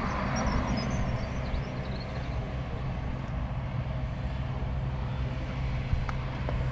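JCB Fastrac 4220's 6.6-litre six-cylinder diesel engine running steadily with a low, even hum.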